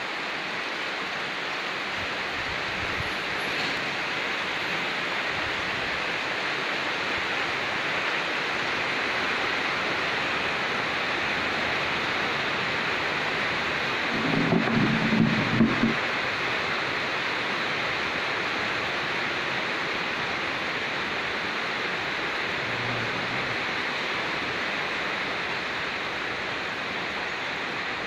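Steady rain falling, an even hiss throughout, with a brief louder low rumble about halfway through.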